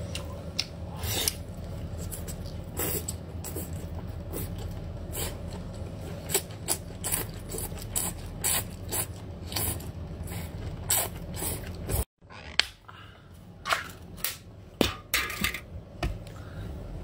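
Close-up eating sounds: wet smacks, sucking and chewing clicks as a marinated octopus's head and tentacles are bitten and sucked, several sharp clicks a second at irregular spacing. A steady low hum underneath stops suddenly about twelve seconds in.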